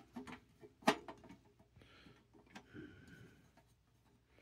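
Sheet-metal drive sled clicking and tapping against the drive bracket of a Fractal Define 7 XL case as it is hooked in and pushed over, with one sharp click about a second in.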